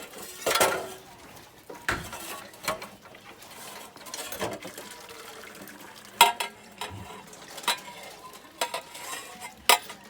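Metal kitchen utensils clinking and scraping against pots and dishes, with about seven separate sharp clinks spread through, a few of them briefly ringing.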